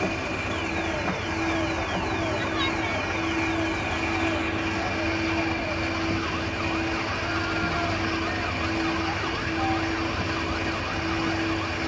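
Electronic sound effects from coin-operated kiddie rides: many short siren-like rising and falling chirps over a low tone that sounds for about a second at a time, again and again.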